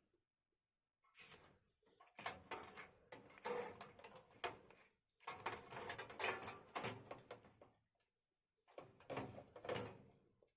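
Handling noise as a motherboard is set into a PC case: light clicks, knocks and scrapes in several bursts, with short silent gaps between them.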